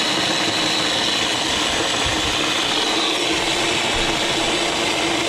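Small electric food chopper running steadily with a constant motor hum, its blade chopping walnuts in the plastic bowl.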